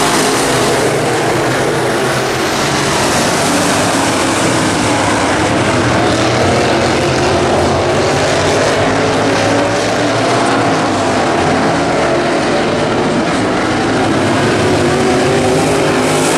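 Several race car engines running together in a field circling an oval track: a steady, loud drone with engine pitches wavering up and down as the cars go around.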